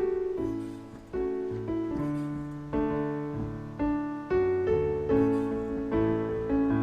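Solo piano playing slow chords, a new chord struck about once a second and left to fade.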